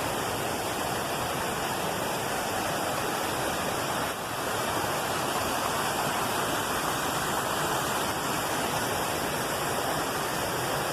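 Steady rushing of water from a waterfall and its stream, with a brief dip in level about four seconds in.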